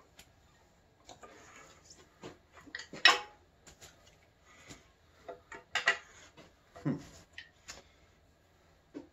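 Irregular metallic clinks and clanks of a wrench or ratchet on the crankshaft bolt of a bare small-block Chevy, as the crank is tried by hand and won't turn. The loudest clank comes about three seconds in, with more around six and seven seconds.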